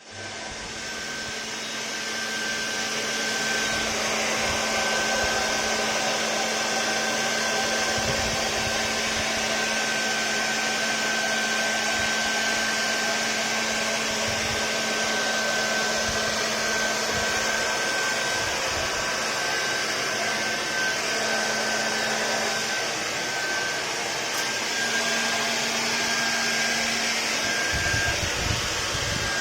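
Steady whirring of a small electric motor moving air, like a hair dryer or fan. It carries a thin high hum and a lower hum, with a few soft low thumps near the end.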